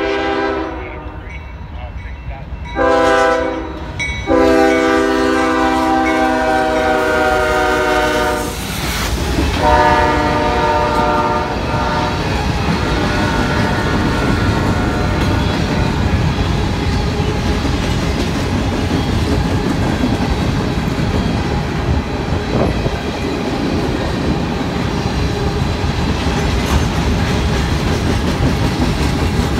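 CSX freight locomotive horn sounding four blasts, the third and fourth long, the last fading as the locomotives go by. Then covered grain hopper cars roll past steadily, their wheels clacking over the rails.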